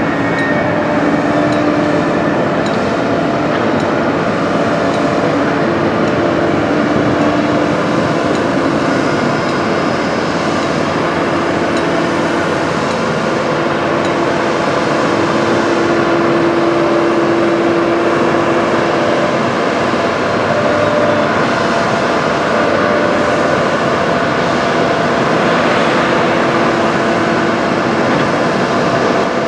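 Container gantry crane at work lowering a container onto a barge: steady machinery noise with a motor hum that wavers slightly in pitch.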